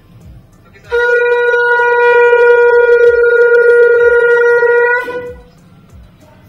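Conch shell (shankha) blown in one long, steady, loud note lasting about four seconds, starting about a second in and cutting off near the end.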